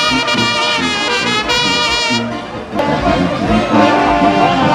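Mexican banda brass music: trumpets and trombones over a moving low bass line. A loud held passage breaks off a little past two seconds in, and the band comes back in with a new phrase.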